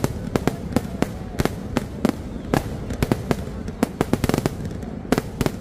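Fireworks barrage: aerial shells bursting in rapid, irregular bangs and crackles, several sharp reports a second, some louder than others.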